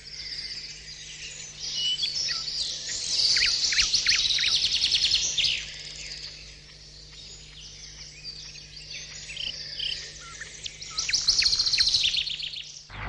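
Several songbirds singing and calling together, a dense chorus of chirps, fast trills and quick falling whistles that stops abruptly near the end.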